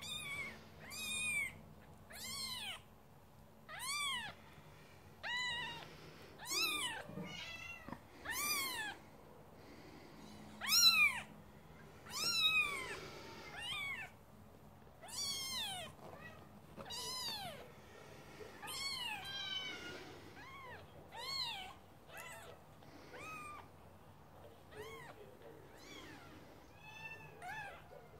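Very young Scottish fold kittens mewing: a steady series of short, high mews, each rising and falling in pitch, about one every second or so, with one louder mew about eleven seconds in.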